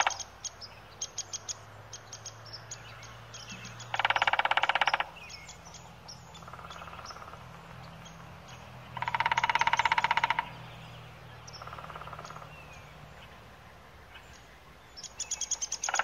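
Red-bellied woodpecker giving its rolling churr call: three loud trilled calls about a second each, a few seconds apart, the last near the end, with fainter trills and short chirps in between.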